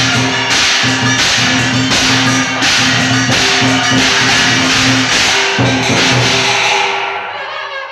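Chinese qilin-dance percussion band: drum and cymbals beating a steady, loud rhythm. It stops about seven seconds in, and a wind instrument with a wavering pitch starts to play.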